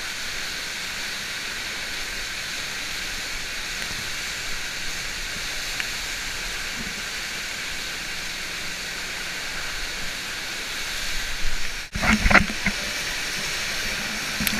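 Steady rush of water pumped up the surface of an artificial standing-wave surf ride, heard close up. About twelve seconds in it breaks off for an instant, followed by a few loud knocks and splashes, then the rush carries on.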